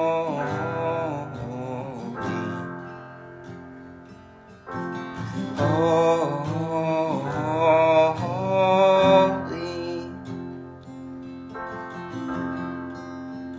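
Acoustic guitar and digital piano playing a slow worship-song passage, with a voice holding long wordless notes near the start and again in the middle.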